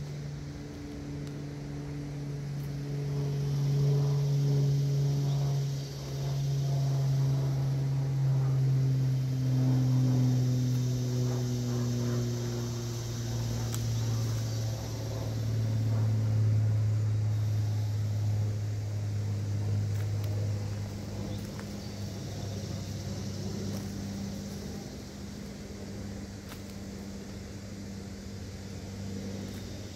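An engine drone whose steady pitch sinks slowly. It grows louder through the first half and then eases off.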